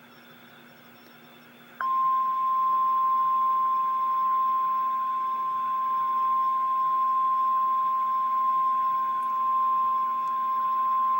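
Weather-radio warning alarm tone: a single steady 1050 Hz tone that comes on sharply about two seconds in and holds without change, the signal that a warning message follows.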